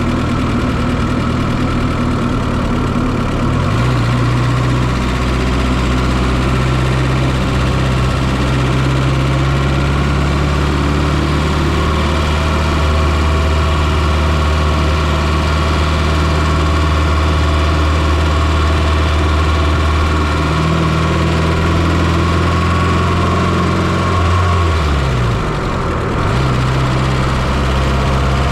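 Fiat Coupé's turbocharged 2.0-litre 16-valve four-cylinder engine running steadily at low revs, heard up close from inside the engine bay. Its speed steps up slightly about four seconds in, then sags briefly and picks back up near the end.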